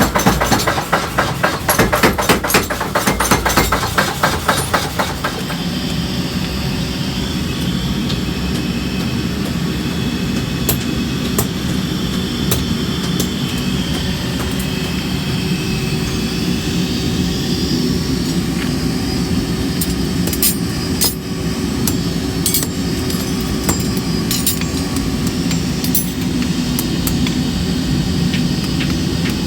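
Metalworking in a blacksmith's shop: rapid hammer strikes on metal for about the first five seconds, then a steady machine running with a few sharp metallic clinks.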